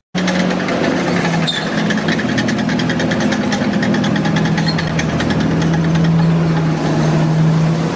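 Electric drive motors and plastic gearing of a motorized brick-built model Sherman Firefly tank running as it drives, with a steady hum and a fast, even ticking throughout.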